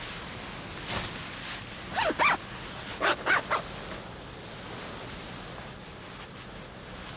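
Five short pitched calls from an animal, two about two seconds in and three about a second later, over a steady wind hiss.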